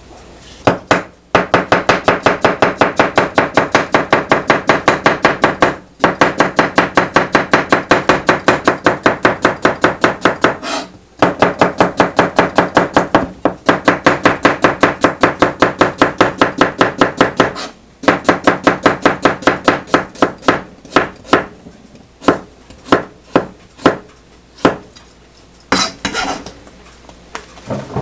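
Kitchen knife chopping fast and evenly on a cutting board, several strokes a second, in long runs broken by brief pauses. Later the cuts slow to scattered single chops.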